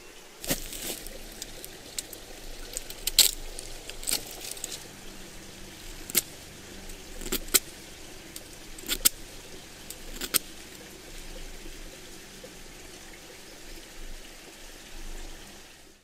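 Freshly sharpened Victorinox Swiss Army knife whittling a point on a wooden stick: crisp slicing strokes through the wood at irregular intervals, about one a second, stopping about ten seconds in.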